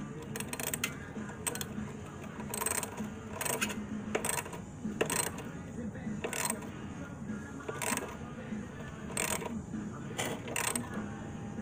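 Light metallic clicks and taps, spaced irregularly about a second apart, from a 10 mm wrench working the side drain bolt on the carburetor bowl of a Predator 6.5 small engine.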